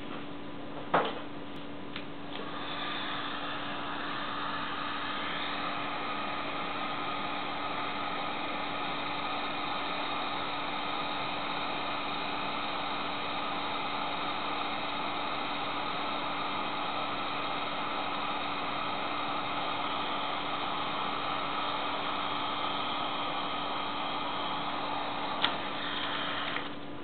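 Heat gun running: a steady blowing hiss with a faint fan whine, starting about two seconds in and stopping shortly before the end. A sharp click comes about a second in, and another just before it stops.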